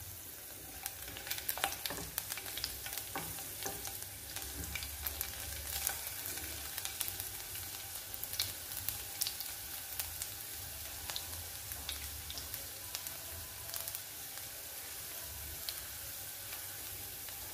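Sliced garlic sizzling in hot coconut oil in a nonstick frying pan: a steady hiss with frequent small pops and crackles, busiest in the first half. A spatula stirs it partway through as the garlic is lightly browned.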